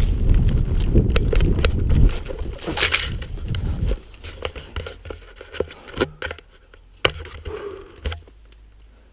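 Rustling and thumping of someone moving, heavy and dense for about the first four seconds, then scattered sharp clicks and knocks that thin out.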